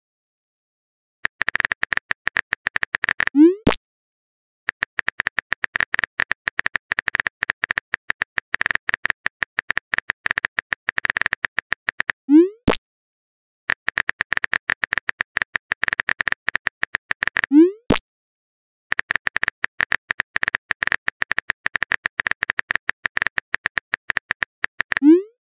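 Phone-keyboard typing sound effect: long runs of rapid, even clicks, each run ending in a short rising 'bloop' message-sent pop. This happens four times, with a brief pause after each pop.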